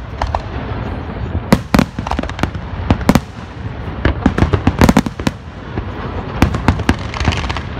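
Aerial firework shells bursting: a string of sharp bangs and cracks, coming in quick clusters every second or two.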